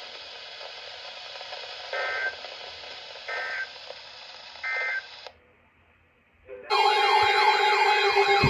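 Weather-radio hiss with three short, evenly spaced bursts of EAS data tones: the end-of-message code sent three times, marking the end of the alert. After a brief silence, electronic music with warbling synthesizer tones begins near the end.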